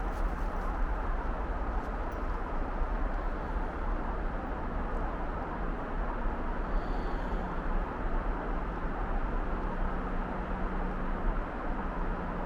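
Steady outdoor background noise with a constant low rumble and no distinct events.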